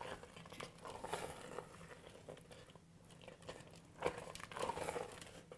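A spoon stirring thick, cheesy risotto in an electric pressure cooker's metal inner pot on its sear setting: irregular soft scrapes and stirring noises, with a run of louder strokes about four seconds in.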